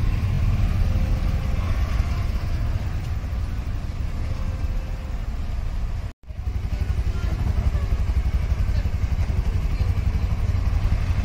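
Street traffic noise, a steady mix of vehicle engines with a deep low rumble. The sound cuts out abruptly for an instant about six seconds in, then carries on.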